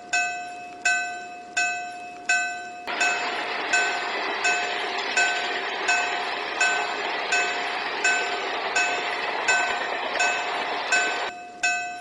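Japanese level-crossing bell ringing its repeated 'kan-kan' warning, about three strikes every two seconds. A train passes with a steady rushing noise from about three seconds in until about a second before the end.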